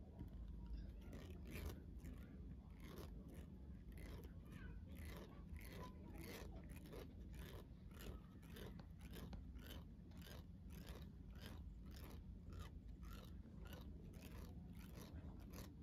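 Twisted cotton thread plucking upper-lip hairs during threading: a faint, steady series of short, sharp snaps, about two to three a second.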